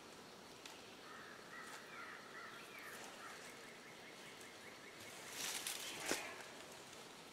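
Rope being hauled tight around a tree trunk: a brief scraping rustle about five seconds in, ending in a sharp click. Earlier, a faint bird calls in the background.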